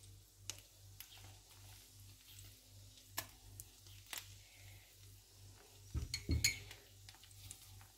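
Faint clicks and scrapes of a metal spoon against a frying pan as ketchup is spread over a meat-filled tortilla, with a few louder knocks about six seconds in.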